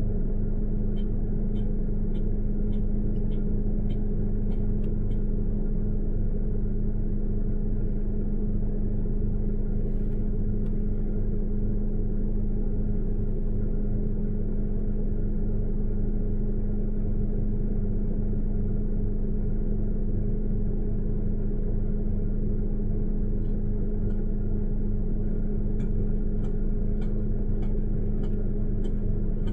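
A motor vehicle's engine idling, a steady low hum that does not change. Light ticks come about twice a second for a few seconds near the start and again near the end.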